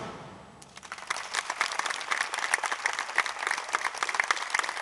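An orchestra's final note fades out, and about half a second later an audience breaks into applause, many hands clapping.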